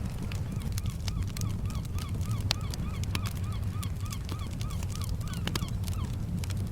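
Wood fire crackling on a beach over a steady low rumble of surf, while a bird gives a fast run of short, repeated calls, about three or four a second, starting about a second in and stopping shortly before the end.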